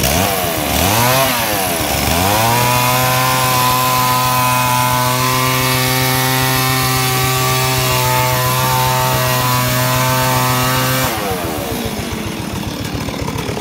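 Stihl two-stroke chainsaw revved up and down a few times, then held at full throttle at a steady pitch while cutting through a teak log, falling back to idle near the end.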